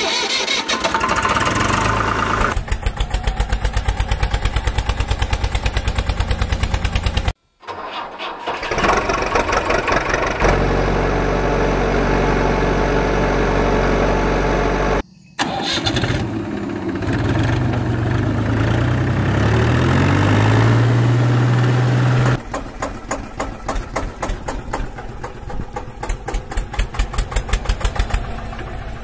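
Vehicle engine sound effects cut together: an engine running with an even, rapid beat, broken off abruptly twice by brief silences. About two-thirds through, the engine pitch rises as it revs, then it drops back to a pulsing idle.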